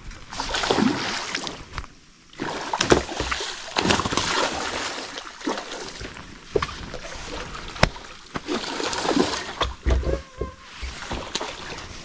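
Hooked tarpon thrashing and jumping at the surface beside a small boat: repeated, uneven splashing and sloshing water, with a few sharp knocks.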